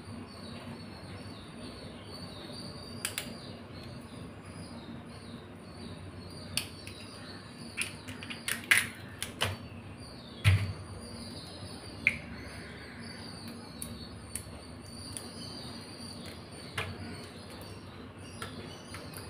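Shells of raw blue swimmer crabs cracking and snapping as they are broken apart by hand: scattered sharp clicks and cracks, clustered most densely around the middle. A steady hum runs underneath.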